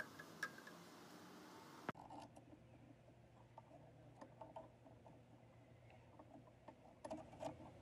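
Near-silent room tone with scattered faint clicks and light metallic taps, a few more together near the end, as motor parts are handled and fitted by hand during reassembly of a vintage electric motor.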